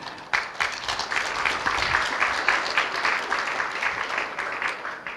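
Audience applauding, a dense patter of clapping that starts about a third of a second in and dies away near the end.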